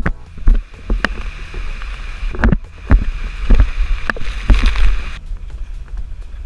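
Loud steady rumble of a large waterfall mixed with wind buffeting the microphone, broken by irregular thumps and knocks. A higher hiss stops abruptly about five seconds in.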